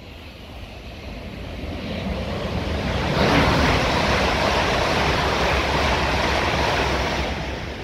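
Two coupled East Midlands Railway Class 360 electric multiple units passing through, the rush and rumble of the train building over the first three seconds, holding steady, then beginning to fade near the end.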